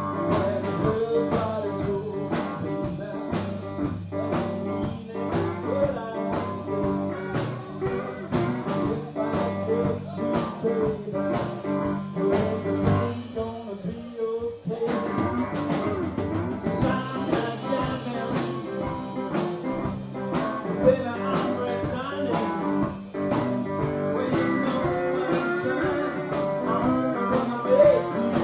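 Live blues band playing a Louisiana blues number: electric guitars over a drum kit, with a man singing. About halfway through, the drums drop out for a moment, then the full band comes back in.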